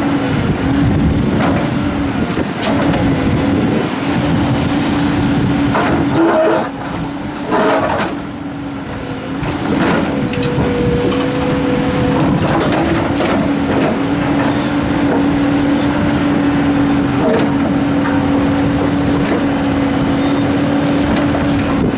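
Komatsu excavator working rocks: the diesel engine and hydraulics run with a steady hum, easing off briefly about seven seconds in, with a few short knocks of rock along the way.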